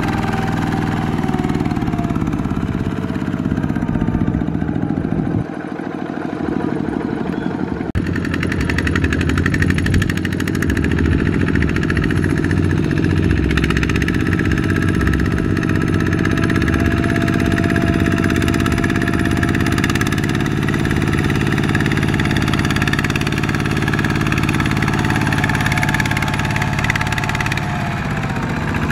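Two-wheel walking tractor's single-cylinder diesel engine running steadily under heavy load, pulling a trailer stacked with rice sacks over a muddy track.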